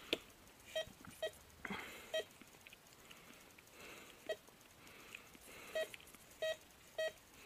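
Metal detector giving short beeps, about seven at irregular gaps, as its search coil sweeps over the ground: target signals from buried metal.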